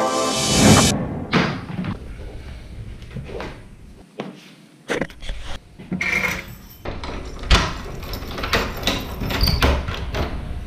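A string of knocks and clunks from handling things at home: a bunch of metal keys jingling as they are picked up off a glass table, then the lever handle and latch of a wooden door as it is opened near the end.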